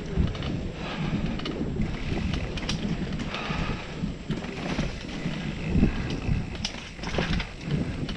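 Mountain bike rolling fast over a dirt singletrack, heard from a camera on the rider: rough tyre and frame rumble with clicks and rattles from the bike, mixed with wind buffeting the microphone. A harder knock comes about six seconds in.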